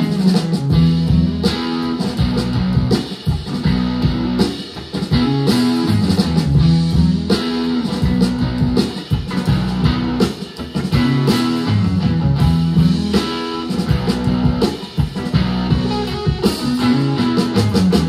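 Electric guitar music with drums, played back through a hi-fi system's bookshelf speakers. The amplifier is fitted with NE5532 op amps and is switched to Burr-Brown OPA2604AP op amps partway through.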